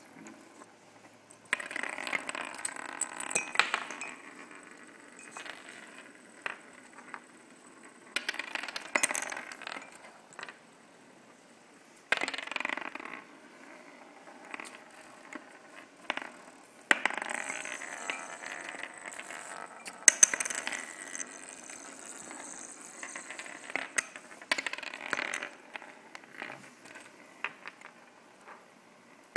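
Small spinning tops spinning on a plywood desktop, rattling, scraping and clicking as they skitter and knock into one another. The rattling comes in several bursts of a few seconds as tops are set going, with scattered sharp clicks in between.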